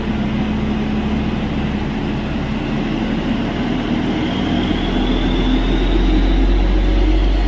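A railway inspection car standing at the platform with its engine running: a steady hum over a low rumble. The rumble grows heavier about five seconds in, and a faint rising whine comes in shortly before.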